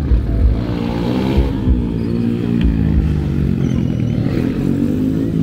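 Stunt motorcycle engine revving up and down several times, its pitch rising and falling over a few seconds.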